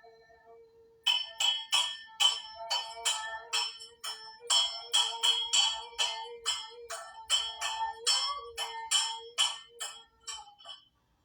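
Quick run of sharp metallic strikes with a bell-like ring, about three a second, played on a makeshift instrument for nearly ten seconds over a faint steady tone.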